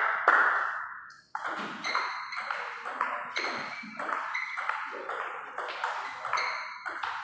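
Table tennis rally: the ball clicking sharply off paddles and table in a quick, even rhythm of about two to three knocks a second.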